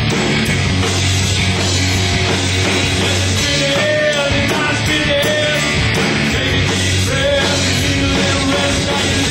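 A rock band playing live and loud: electric guitars through amplifiers, bass and a drum kit, with a held low bass note and a wavering melodic line.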